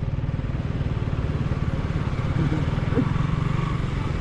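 Motorcycle engine running steadily at low speed while the bike rolls along, a quick even exhaust pulse heard from on the bike.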